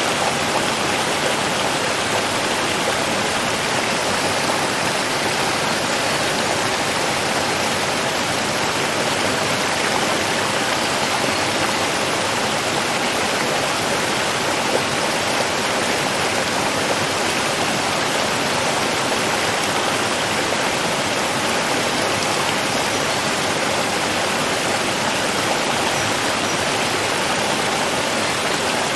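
Running water rushing steadily, an even hiss with no breaks or separate splashes.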